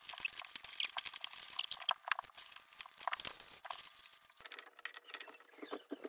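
Irregular scratching, rustling and small clicks of wires and a plastic smart switch being pushed and fitted into a wall electrical box by hand.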